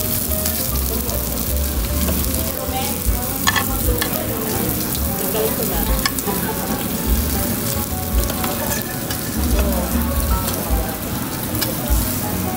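Meat sizzling on a tabletop Korean-barbecue grill: a steady hiss, with a few light clicks.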